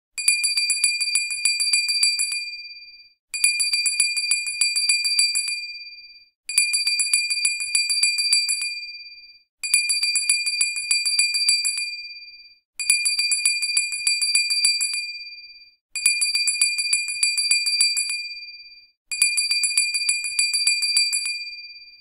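Hand bell shaken rapidly, the clapper striking many times a second for about two seconds, then the high ring dies away. The same ringing burst repeats seven times, about three seconds apart.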